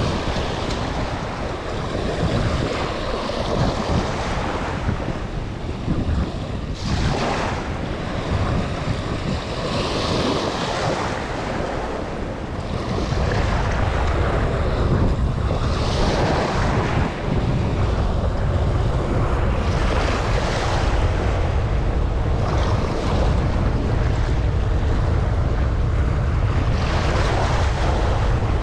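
Small surf waves breaking and washing up the sand, swelling and fading every few seconds, with wind rumbling on the microphone that grows heavier about halfway through.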